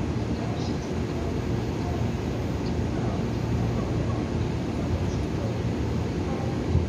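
Taiwan Railway EMU900 electric multiple unit pulling slowly along the platform, a steady low rumble.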